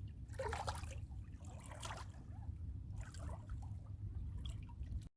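Lake water trickling and lapping at the shoreline in small irregular splashes, over a steady low rumble.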